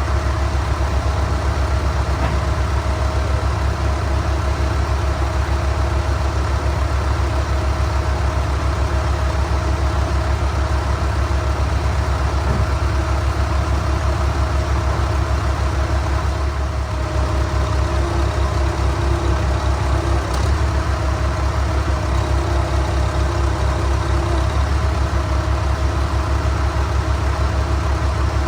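Vehicle engine running steadily at an even speed, with a strong low, even pulse and no revving.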